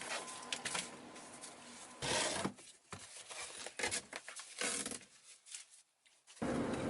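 Scattered scraping, rubbing and clicks of hand and tool work at a car seat's mounting screws, with a louder scrape about two seconds in. Near the end a denser, steady rustling noise starts suddenly.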